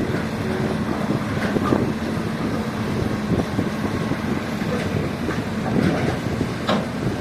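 Radio-controlled model construction machine running: its electric motor, gears and tracks rattling and clicking continuously, with a steady low hum that fades about five seconds in.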